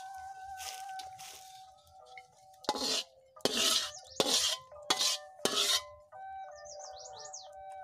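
Metal spatula scraping stir-fried vegetables out of a metal wok onto a plate: about five loud scrapes and clanks in quick succession, over steady background music.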